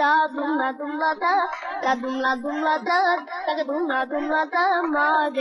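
A high voice singing a melody continuously, cutting in abruptly at full level.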